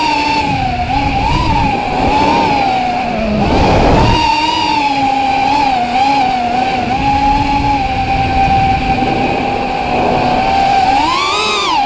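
Brushless motors and propellers of a 4S FPV racing quadcopter (Racerstar 2205 2600kv motors) whining, the pitch wavering up and down with throttle. A rush of wind noise comes about four seconds in, and near the end the whine climbs sharply and falls back.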